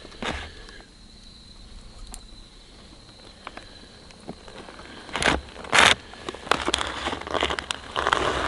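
Hot water poured from a camp stove's cooking cup into a foil freeze-dried meal pouch, with crinkling of the pouch. It starts about five seconds in with two loud handling noises, then a stretch of crackly pouring and rustling.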